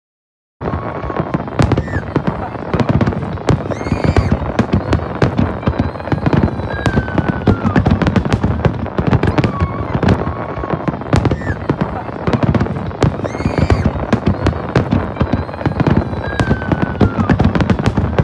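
Fireworks display: a dense, continuous barrage of bangs and crackling bursts, starting abruptly about half a second in.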